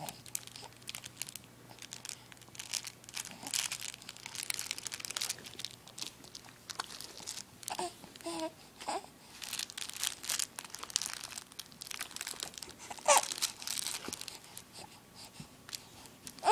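Fabric crinkle toy crinkling as it is handled, a long run of small crackles. A baby coos briefly a couple of times, about halfway through and again later.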